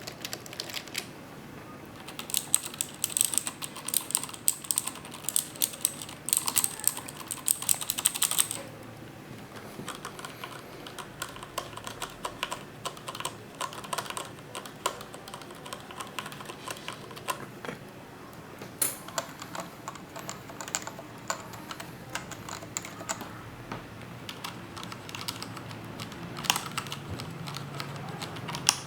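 Typing on computer keyboards, changing from one keyboard to another: a loud run of sharp, clicky keystrokes, then quieter, softer typing on other keyboards. The keyboards use different switch types, from clicky mechanical switches to rubber domes.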